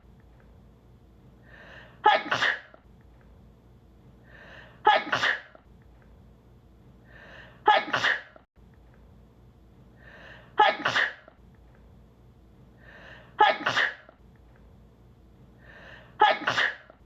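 A woman's sneeze, looped: the same sneeze repeats six times, about every three seconds, each with a short breath-in just before it.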